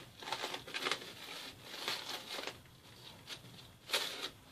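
Plastic cling film crinkling and rustling in the hands as it is pressed and folded around a block of dough, with a sharper crackle near the end.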